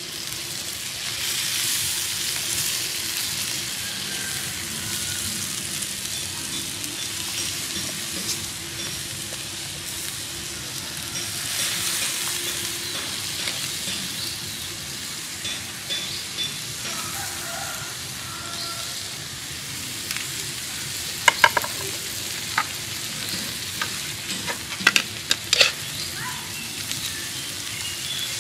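Giant prawns sizzling on a hot stone slab over a fire, a steady hiss of cooking juices. Several sharp crackles and pops come in the second half.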